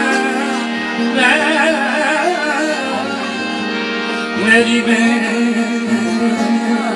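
A man singing long, ornamented phrases with wavering pitch over steady held instrumental notes, with a light low drum stroke now and then.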